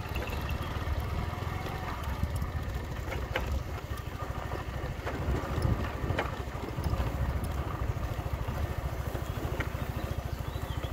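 Steady low rumble with a rapid flutter, from wind and movement noise on the microphone, with a few short high chirps about three and six seconds in.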